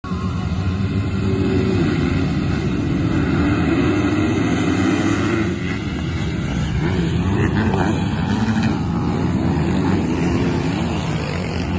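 A pack of motocross bikes with many engines running at once, revving hard as they launch off the start line and accelerate away.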